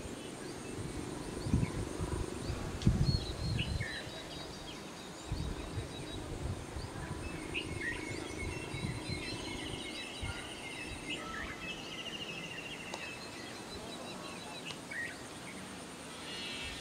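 Open-air ambience: scattered bird chirps and short trills over a thin, steady high insect drone, with wind rumbling on the microphone in gusts, strongest in the first half.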